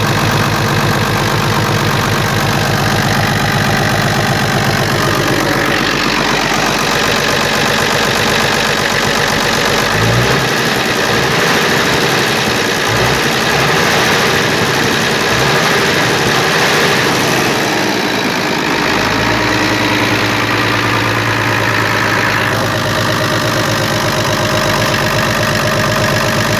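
FNM 180 truck's diesel engine running after three years parked, its speed raised for a stretch in the middle and settling back to idle near the end.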